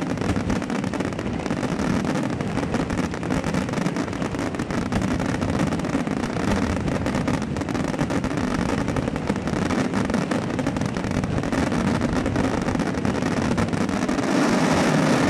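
A fireworks display, heard as a dense, continuous crackle of many small overlapping bursts with a steady low rumble beneath. No single big bang stands out.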